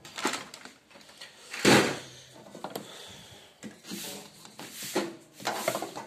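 Rubbing and scraping handling noises as the washing machine's plastic hoses and wiring are pushed about, coming in a few short bursts, the loudest about two seconds in.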